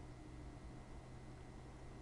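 Faint steady hiss with a low hum: the background noise of the recording beside the receiving radio, with no transmission coming through.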